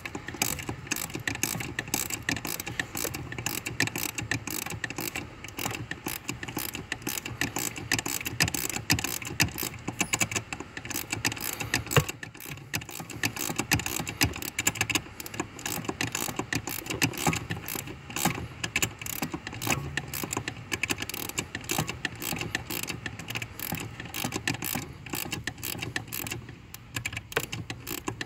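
10 mm ratcheting ring spanner clicking rapidly and steadily as it turns the brake pedal adjuster bolt, tightening it to take up the pedal's free play.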